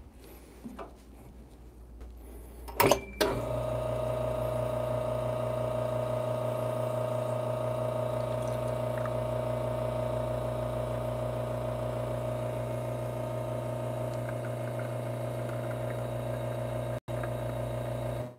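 Espresso machine pump switching on with a couple of sharp clicks about three seconds in, then running with a steady hum while an espresso shot extracts.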